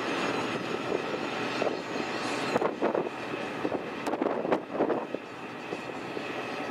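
Boat engine running steadily, with a handful of short sharp knocks or splashes in the middle.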